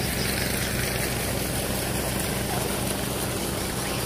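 Boat engine running steadily on the river, a continuous low hum with no change in speed.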